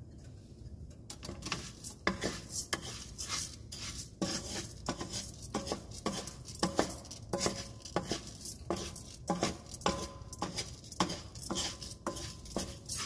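Wooden spoon stirring long-grain rice in olive oil in a nonstick skillet, toasting the rice. It makes a quick, irregular run of scrapes and taps against the pan that begins about a second in.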